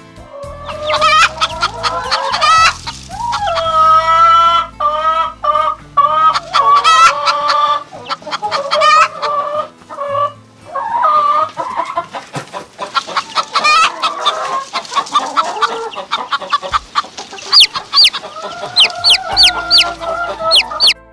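Hens clucking with several long drawn-out calls. Near the end comes a run of quick, high chick peeps.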